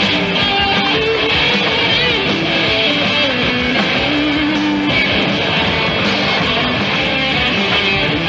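Rock music with guitar at a steady, loud level.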